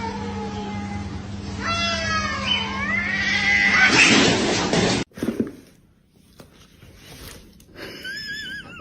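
A cat meowing and yowling in several drawn-out calls over a steady low hum. The calls grow louder until they cut off suddenly about five seconds in. A quieter wavering call comes near the end.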